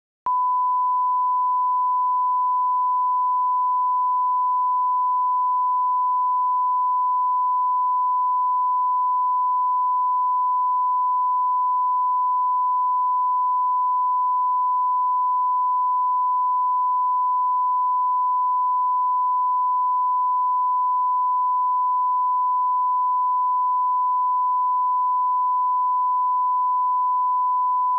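Steady, unbroken line-up test tone, the single pure reference tone that accompanies colour bars, starting a moment in.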